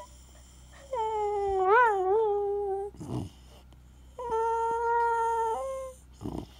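Terrier whining: two long, high-pitched whines, the first wavering up and down in pitch, the second held steady and stepping up briefly at the end, with a short breathy sound between them. It is whining for attention.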